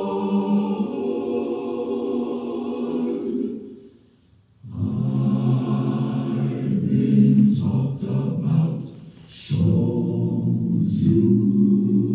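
Recorded choir singing a slow spiritual in long held chords. The voices fade out about four seconds in and return, and dip briefly again near nine seconds.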